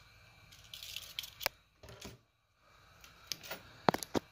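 Handling noise at a workbench: a few sharp clicks and light knocks, with a quick cluster of the loudest near the end.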